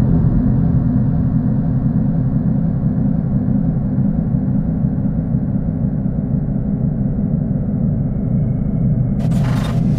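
Low, steady rumbling drone of a dark ambient soundtrack, with a short burst of hiss about nine seconds in.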